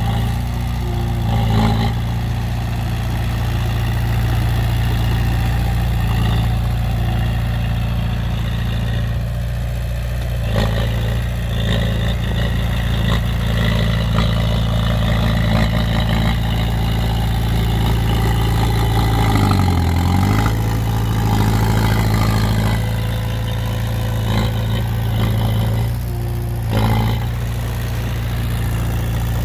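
Heavy diesel engine running steadily at low revs. About twenty seconds in, its pitch dips and comes back up.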